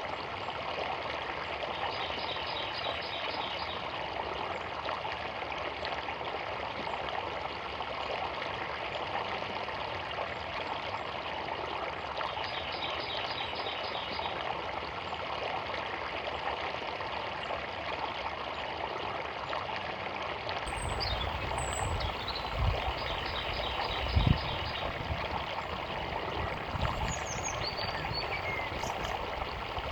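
Small forest river running steadily. A bird sings a short, fast trill three times, about ten seconds apart, and other birds chirp in the last third. Low rumbling thumps come in the last third, the loudest about 24 seconds in.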